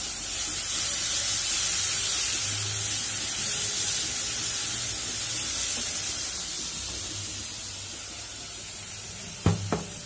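Garlic paste and fried onions sizzling in hot mustard oil in a wok while being stirred with a spatula; the sizzle eases off in the second half. A couple of sharp taps near the end.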